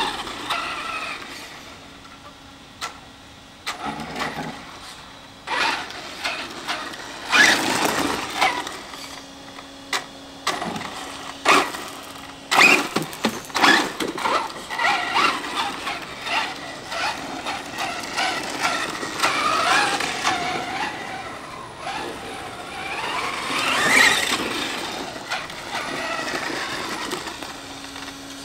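Brushless electric motor of a Thunder Tiger SSK v2 RC truck whining up and down in pitch as it speeds up and slows, with its tyres crackling over gravel and broken concrete.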